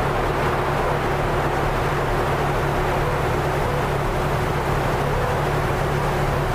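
CB radio receiver carrying an open, keyed-up transmission with nobody talking: a steady hiss with a constant low droning hum underneath.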